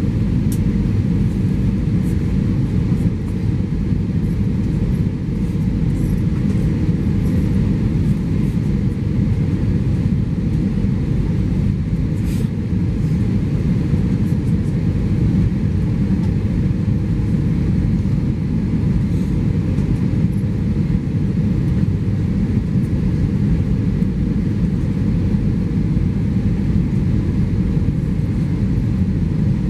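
Steady low rumble of cabin noise inside an Airbus A320-214 in flight: its CFM56-5B engines and airflow over the fuselage, heard from a window seat near the back of the cabin.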